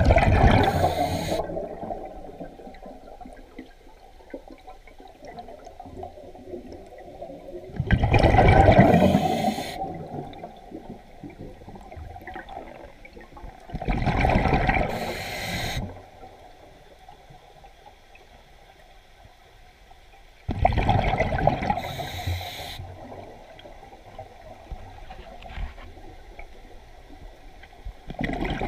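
Scuba diver breathing underwater through a regulator: a bubbling rush of exhaled air followed by a short high hiss of inhalation, about every six to seven seconds, five times in all.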